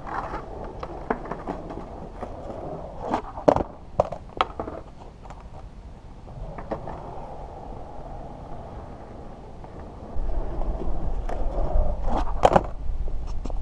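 Skateboard on concrete: a few sharp clacks of the board in the first seconds, then a low rumble of wheels rolling in from about ten seconds in. Near the end comes a cluster of loud clacks, the pop and landing of a flip trick.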